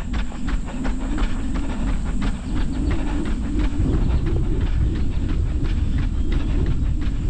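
Running footsteps on an unpaved dirt-and-gravel trail, crunching at a steady pace of about three strides a second, over a steady low rumble.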